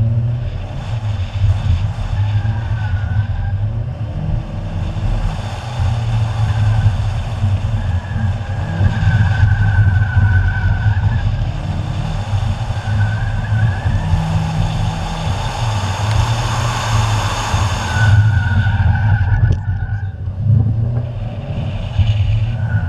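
Car engine revving up and down as it is driven hard through an autocross cone course. The tires squeal in the corners about five times, the longest squeal lasting a few seconds.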